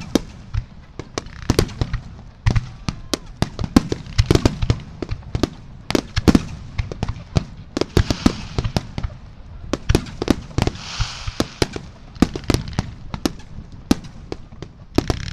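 Aerial firework shells bursting in rapid succession, many sharp bangs every second over a low rumble, with hissing washes about eight and eleven seconds in.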